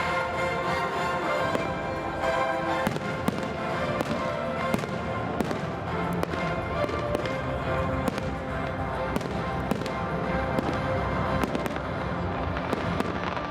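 Fireworks bursting in a quick, irregular series of bangs and crackles over music playing through the show's loudspeakers.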